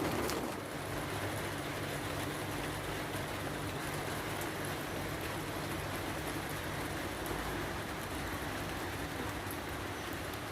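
Steady rain falling, an even hiss with a faint low hum underneath.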